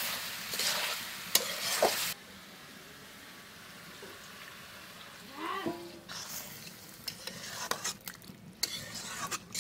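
Metal ladle stirring and scraping chicken in a metal kadai, clicking against the pan over the sizzle of the frying. The stirring stops about two seconds in, leaving a steady quieter sizzle, and the clicking starts again in the last few seconds.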